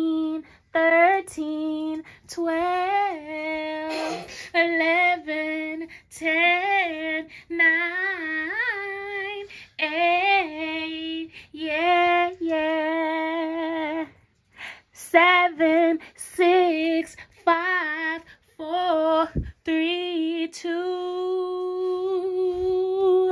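A woman singing: a string of short melodic phrases with vibrato, broken by brief pauses, ending on a long held note.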